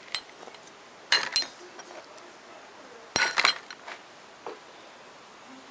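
Small metal hardware clinking and clicking as it is handled, in three short bursts of sharp clicks about a second apart to two seconds apart, with one fainter click near the end.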